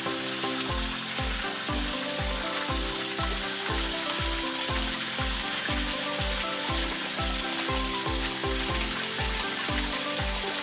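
Background music with a steady beat, over water splashing as it pours into a hydroponic reservoir box from the newly installed pump's pipework.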